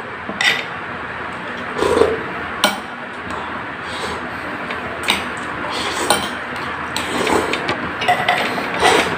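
Metal spoon clinking and scraping against a ceramic bowl and plate every second or two while noodles and rice are eaten, with mouth sounds of chewing between the clinks. A steady hiss runs underneath.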